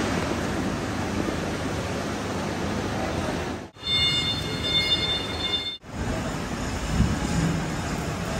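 Steady rumbling factory machinery noise, with a high steady whine over it for about two seconds in the middle.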